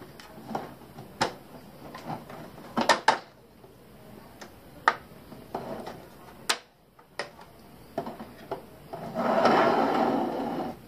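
Plastic parts of a 3D-printed RC tracked chassis being handled on a workbench: scattered sharp clicks and knocks, then about two seconds of rubbing near the end.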